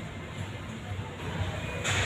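Steady low rumble of city traffic under faint background music.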